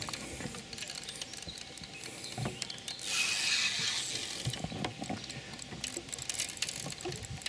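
Fishing reel clicking irregularly as a hooked fish is played in on a feeder rod, with a short hiss about three seconds in.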